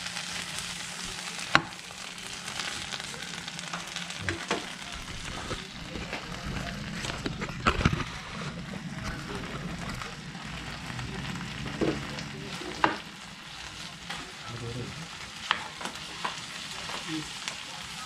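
Frozen pork pieces sizzling steadily in hot oil in a frying pan. A few sharp knocks of a spatula against the pan come through, the loudest about a second and a half in and again near two-thirds of the way through.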